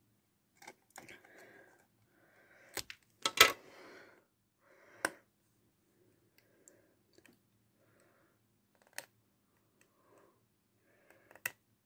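Scissors snipping through a stiff plastic casing stuck around a trading card: several sharp snips in the first five seconds, the loudest about three and a half seconds in, then fainter clicks and crinkling of the plastic as it is handled.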